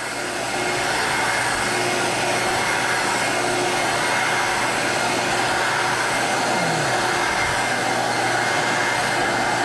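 A Hytee portable carpet extractor runs with its vacuum drawing through a regular hand wand as the wand is worked back and forth over wet carpet. It makes a steady rushing drone of motor and suction.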